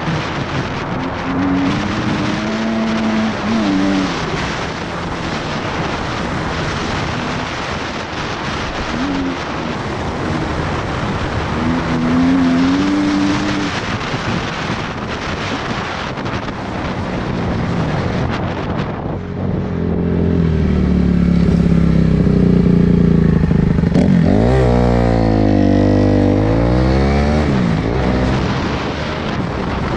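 2013 Kawasaki KX250F four-stroke single-cylinder engine revving up and down through the gears under heavy wind noise on the microphone. About two-thirds of the way through the wind noise falls away and the engine stands out clearly, its pitch sweeping quickly up and down as it revs.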